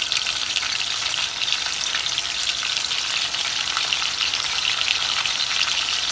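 A piece of seasoned beef searing in hot oil in a pot on a gas burner: a steady, crackling sizzle as the outside browns.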